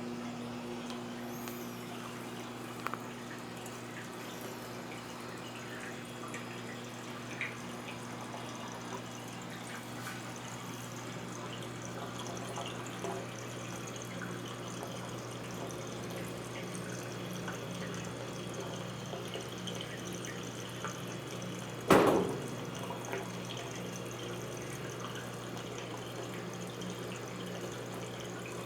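Brastemp 14 kg washing machine running with water moving inside, a steady low hum under faint drips and small clicks. A single sharp knock sounds about 22 seconds in.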